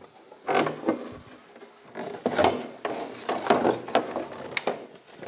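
Polyester seat shell being worked out of a race car cockpit: irregular knocks, scrapes and rubbing as the shell is handled.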